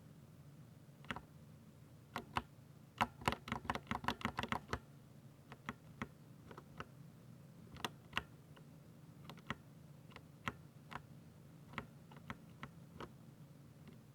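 Typing on a Ducky 60% mechanical keyboard with silver switches: irregular keystrokes, a quick burst of rapid typing about three seconds in, then slower, scattered key presses.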